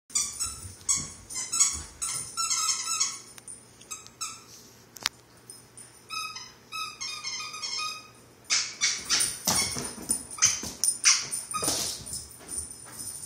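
A dog's rubber squeaky toy squeaked over and over in short, quick squeaks as the dog bites and chews it. From about eight and a half seconds in come louder, rougher bursts of squeaking and knocking.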